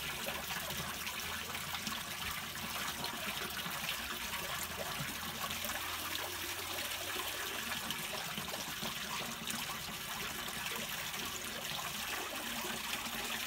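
Water draining down into a street storm drain through its curb-inlet grate: a steady hiss flecked with tiny ticks.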